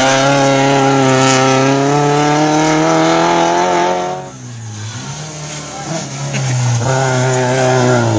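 Race car engines running at high revs as cars speed past on the track. One engine note holds loud and steady, drops away about four seconds in, then another car's engine comes up loud again near the end.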